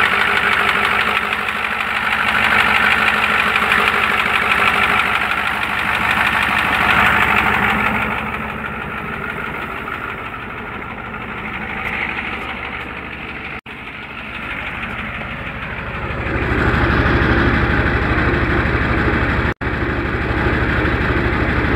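Ford 7.3 L IDI turbo-diesel V8 idling with a rapid, steady tick-knock that the owner suspects may be a lifter in the worn engine. About three-quarters of the way through, the idle comes in louder and deeper at the tailpipe.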